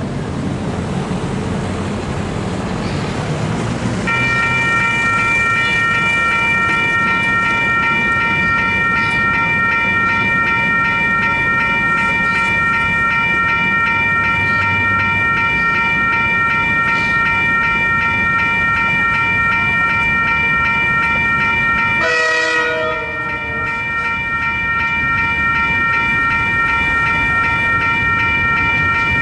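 Western Cullen Hayes electronic level-crossing bells start ringing about four seconds in. They give a steady, rapid electronic ring that keeps up without change, warning that a train is coming. About 22 seconds in, the ringing breaks off briefly under a short wavering sound, then carries on.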